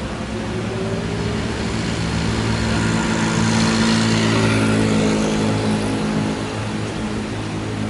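A man's long, deep burp, held as one low steady pitch with a raspy edge, swelling louder in the middle.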